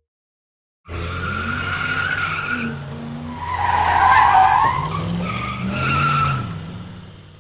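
Car tyres screeching in a long skid. The screech starts suddenly about a second in, swells to its loudest in the middle, rises again briefly, and fades away near the end, with a low hum rising and falling beneath it.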